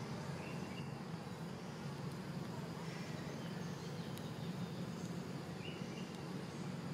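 Outdoor ambience: a steady low hum under faint background noise, with two faint short chirps, one about half a second in and one near the end.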